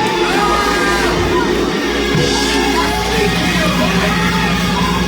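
Worship music: sustained chords with voices singing and calling out over them in repeated rising-and-falling phrases.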